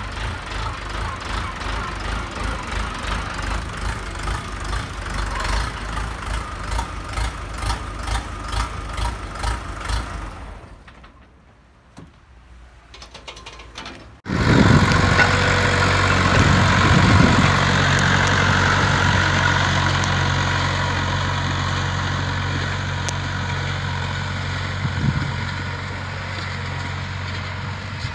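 Luzhong LZ504B 50 hp diesel tractor engine running with a pulsing beat as the tractor drives off. About eleven seconds in it drops away to a quiet stretch, then at about fourteen seconds a loud, steady diesel engine sound cuts in and runs on, easing a little toward the end.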